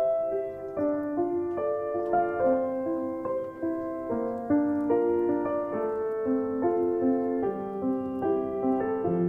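Background piano music: a melody over chords, the notes changing about every half second.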